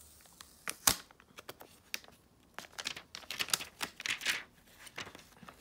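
Clear plastic protective film on a new smartphone crinkling and clicking as the phone is handled: a sharp click about a second in, then a run of light crinkles and ticks in the middle.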